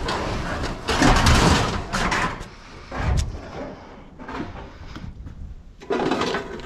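Scrap sheet-metal appliance panels being pulled out of a van and tossed onto the ground. Rattling clatter, a heavy thump about three seconds in, then more clattering near the end.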